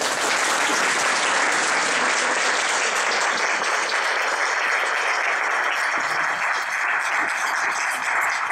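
Audience applauding, a steady sustained round of clapping.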